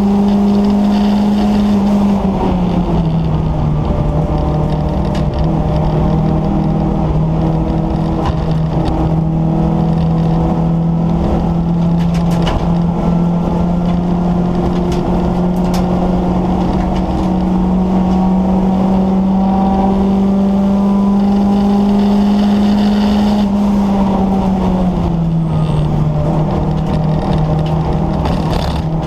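Ford Escort XR3i race car's four-cylinder engine running hard, heard from inside the stripped cabin. The engine note drops a step about two seconds in, climbs slowly for some twenty seconds, then drops again near the end.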